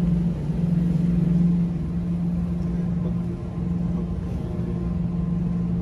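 Refrigerated display case running with a steady low hum.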